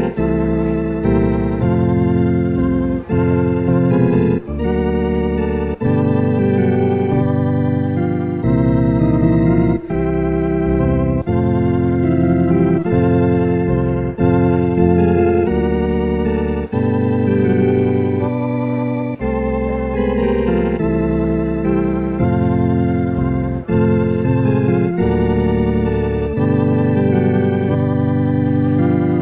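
Organ music: sustained chords of a slow tune, changing about once a second, some notes wavering with vibrato.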